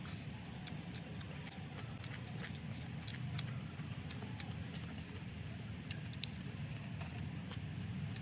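Close-miked eating sounds: scattered sharp clicks and crunches of chewing, with a few light clinks, over a steady low background hum.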